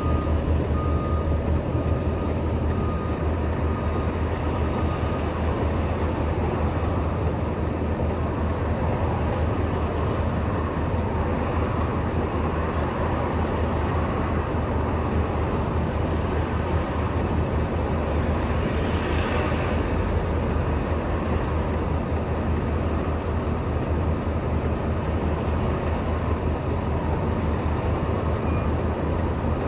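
Heavy vehicle engines idling together as a low, even drone. A faint high beeping comes and goes for the first few seconds.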